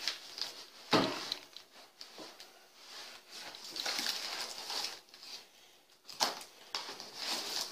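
A knife slicing through packing tape on a cardboard box, with scraping and rustling of the tape and cardboard, and a sharp knock or rip about a second in and again about six seconds in as the box is handled.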